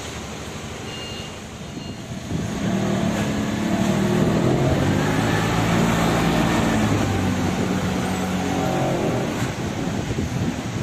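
Mitsubishi forklift engine running, revving up about two seconds in and staying loud as the truck drives and manoeuvres with a loaded pallet, its pitch rising and falling with the throttle.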